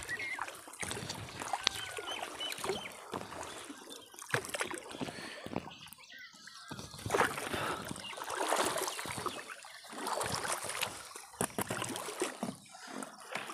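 Water sloshing and splashing in irregular surges, made by a person moving in the water while handling a fishing line.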